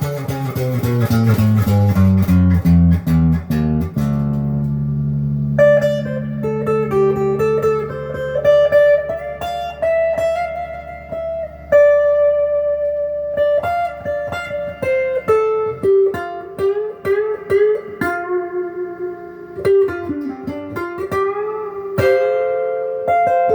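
Les Paul-style electric guitar with stock pickups, played clean on the neck pickup through an amp with a lot of reverb. The first few seconds are a run of low notes stepping down the bass strings; after that comes a single-note melody with bent notes.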